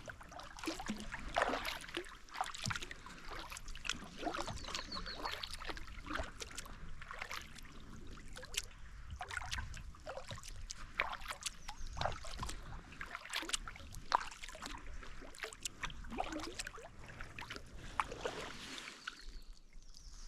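Kayak paddle strokes in lake water: the blades dipping and splashing, with water trickling and dripping off them between strokes.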